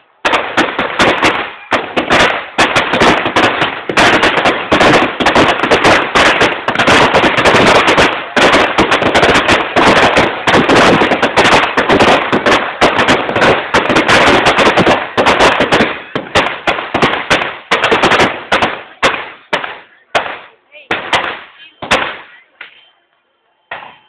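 Firecrackers in a burning Ravan effigy going off in a dense, rapid crackle of bangs, thinning out after about sixteen seconds and dying away a little before the end, with one last bang near the end.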